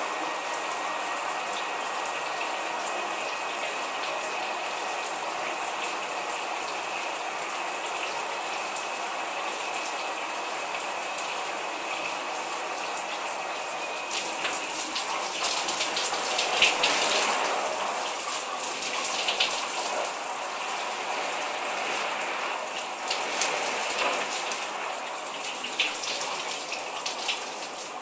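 Shower running: water spraying steadily and pattering, then from about halfway on louder and uneven, with splashes as the flow is broken up.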